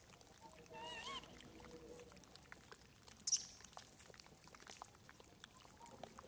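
A faint, short wavering squeak from a macaque about a second in, followed by a brief rustle and soft scattered clicks.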